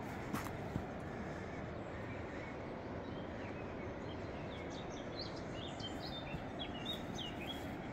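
A small bird calling with a run of short high chirps, starting a few seconds in and going on to near the end, over steady outdoor background noise.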